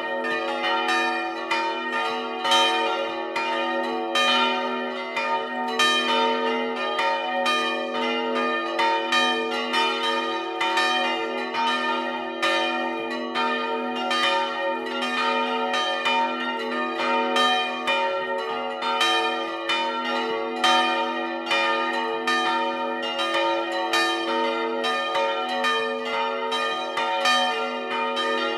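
Several swinging bronze church bells ringing together in the belfry, their strikes falling several times a second in an uneven, overlapping pattern over a sustained ringing hum.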